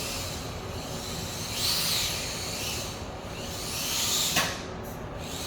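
Small brushed electric motor of a Wltoys K989 1/28-scale 4WD RC car whining, with tyre hiss, swelling twice, about a second and a half in and again around four seconds in. There is one sharp click near the end of the second swell.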